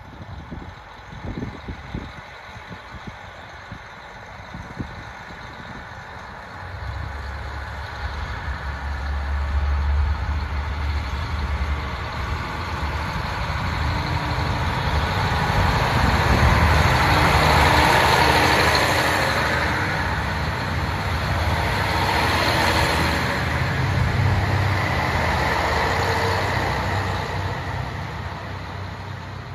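JR Hokkaido KiHa 40 diesel railcars going past close by, with their diesel engines running and their wheels on the rails. A low engine drone comes in about seven seconds in and swells with rumbling wheel noise as the cars go by, then fades as the train moves away.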